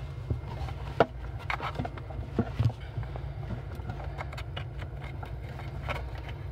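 A few short clicks and knocks from a power cord and network cables being handled and fitted into a PoE injector's power socket, the sharpest about a second in, over a steady low hum.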